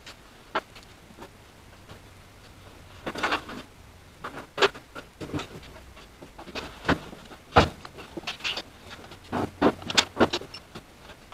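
Scattered clicks, clunks and rattles of hands fitting the air cleaner hose and canister onto a Jeep M38A1's engine, with the sharpest knock about two-thirds through.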